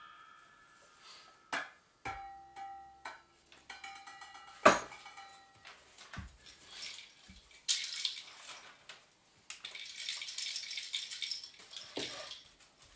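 A few sharp metallic taps with brief ringing in the first five seconds, the loudest about halfway through, then a sheet of aluminium foil being crinkled and crumpled for about four seconds.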